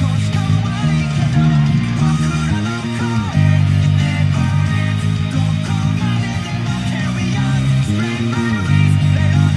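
Electric bass guitar played live over a full band rock track, the bass line strong and steady, with two sweeping pitch glides, one about three seconds in and one near the end.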